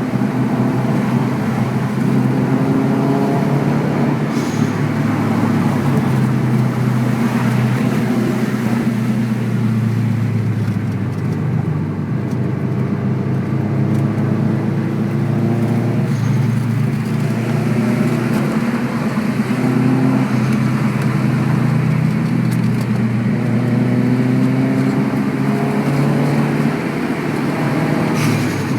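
Subaru WRX's turbocharged flat-four engine running under way, its pitch rising and falling repeatedly with throttle, with a few faint short hisses.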